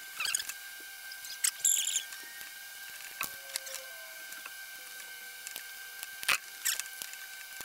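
Scattered small clicks, scrapes and rattles of a wall light switch being unscrewed and worked out of a plastic electrical box, its wires handled, over a faint steady high tone.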